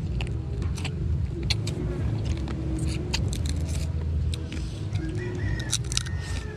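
Land crab shells being cracked and picked apart by hand while eating: a scatter of short sharp clicks and crunches over a steady low rumble.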